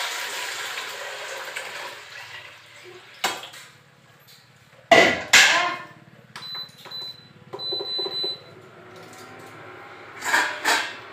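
Water poured from a steel bucket into a steel pot, splashing for about two and a half seconds and tailing off. Then a click and two loud knocks of steel vessels, followed by two high, steady electronic beeps from an induction cooktop's controls as it is switched on, over a faint low hum.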